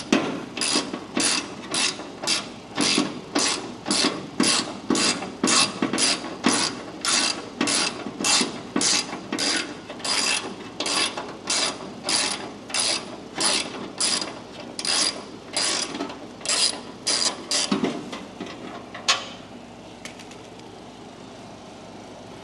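Hammer blows on a metal car part, about two a second, each with a short metallic ring. The blows stop about 18 seconds in, and a single last blow follows a second later.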